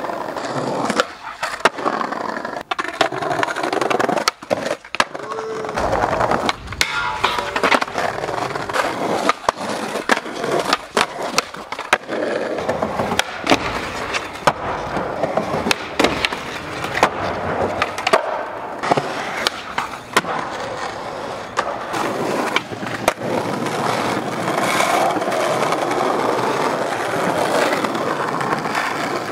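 Skateboard wheels rolling on concrete and stone pavement, broken by many sharp clacks of the board being popped and landing.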